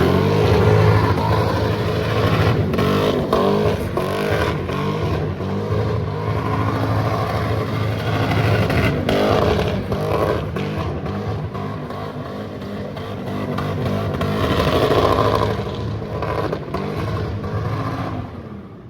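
Lexus LS400's 4.0-litre V8 revving up and held at high revs while the car is slid round in donuts, the pitch wandering up and down; the revs drop away near the end.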